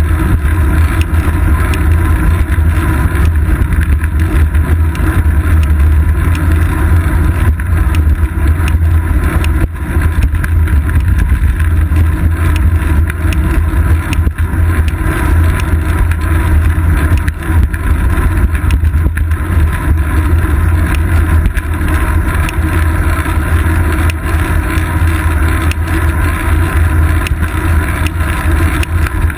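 Steady rumble of wind and road vibration picked up by a GoPro Hero 2 camera mounted on the seat post of a moving bicycle, loudest in the deep low end and unbroken throughout.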